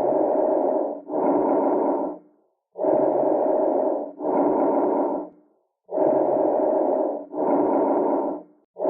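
Lung breath sounds of the kind listened to in auscultation. There are about three breathing cycles, each a breath in running straight into a breath out, each phase about a second long, with short pauses between cycles.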